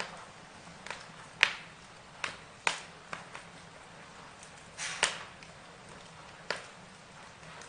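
Burning wood crackling, with irregular sharp pops over a faint steady hiss. The loudest pops come about a second and a half in and again around five seconds.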